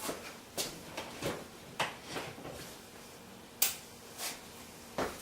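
Irregular light knocks and clicks of objects being handled, about eight of them spread unevenly, the sharpest one about three and a half seconds in.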